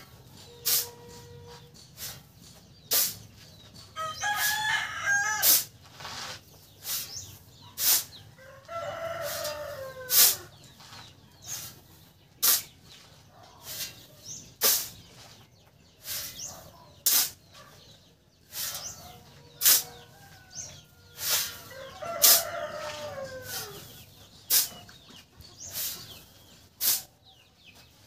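A steel shovel scrapes and strikes into a sand pile, one sharp stroke about every second as sand is shovelled out for mixing. A rooster crows several times among the strokes.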